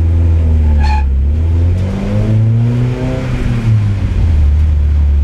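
Spec Miata's four-cylinder race engine heard from inside the cabin, pulling away at low revs: a steady hum that climbs in pitch for a second or two in the middle and then eases back down.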